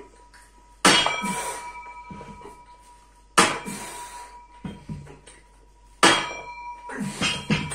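Barbell loaded with iron weight plates clanging sharply once per rep during a chest-supported row, three times about two and a half seconds apart. Each clang rings out metallically and fades, with a few lighter knocks near the end.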